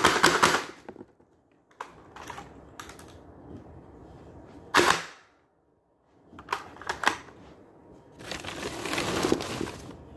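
QWK Challenger Mk III electric (AEG) short-dart blaster firing a rapid full-auto burst that stops about a second in. After it come scattered plastic clicks and handling noise as the blaster and its tube magazine are worked, with one louder knock about halfway through.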